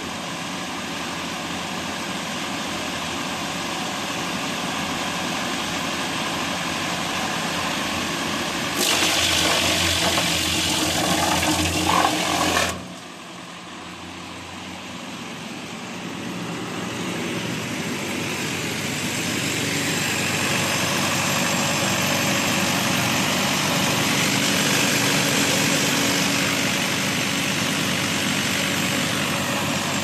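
Diesel engine of a mobile wood chipper-shredder running steadily. About nine seconds in there is a louder, harsher stretch that stops abruptly some four seconds later; the sound then builds up again and stays steady.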